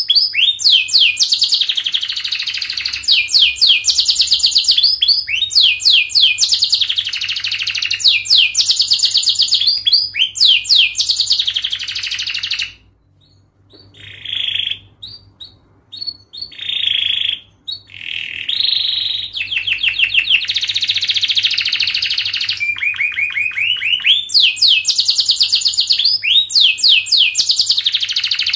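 Domestic canary singing a long, fast, dense song of rapid repeated trills and rolls, the kind of song played to teach young canaries. About halfway through it breaks off briefly into a few scattered notes, then resumes at full pace.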